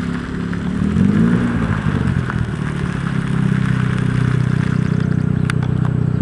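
Mazda RX-7's rotary engine running, with a brief rev that rises and falls about a second in, then a steady, louder drone from about three seconds on. A single sharp click comes near the end.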